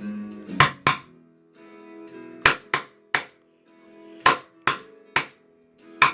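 Acoustic guitar played in a slow, uneven strum: sharp chord strokes in twos and threes, about every half second to second, over notes left ringing between them.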